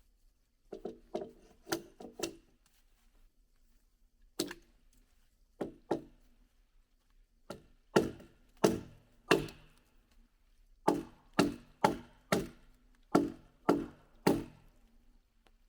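Wood being chopped: about twenty sharp blows, a quick flurry at the start, then single strikes, then a steady run of about two blows a second through the second half.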